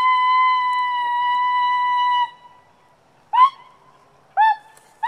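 A long, steady, high whistle-like note that cuts off about two seconds in. After a short pause come two short honks from geese, at about three and a half and four and a half seconds.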